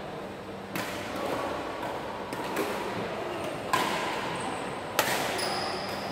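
Badminton racquets striking a shuttlecock in a rally: three sharp hits a second or more apart, echoing in a large sports hall.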